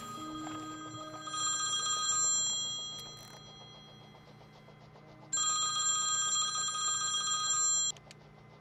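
Cell phone ringtone ringing for an incoming call: a bright electronic ring of several steady tones sounds twice. The first ring swells and fades, and the second cuts off suddenly near the end.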